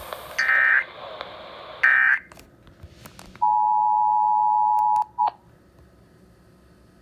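Emergency Alert System end-of-message code: two short warbling digital data bursts about a second and a half apart, the last of the three-burst sequence. After a short gap comes the steady two-tone EAS attention signal (853 and 960 Hz), which sounds for about a second and a half and cuts off.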